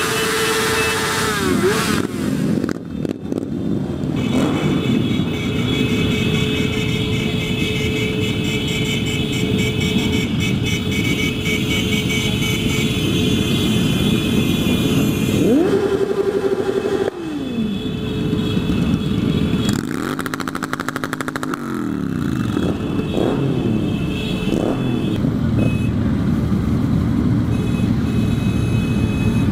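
Motorcycle engines of a slow group ride, the rider's own Honda running close to the microphone amid many other bikes. Engines rev up and fall back in pitch several times, around the middle and again about two-thirds through.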